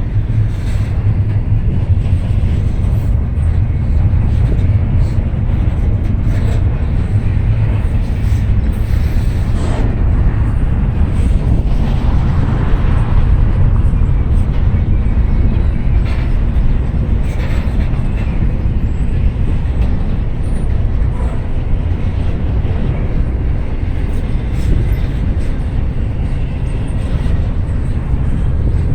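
Freight train rolling past slowly, a steady low rumble of the cars on the rails, with wind buffeting the microphone.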